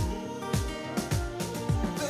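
Background music with sustained chords and a deep, pitch-dropping drum beat about twice a second.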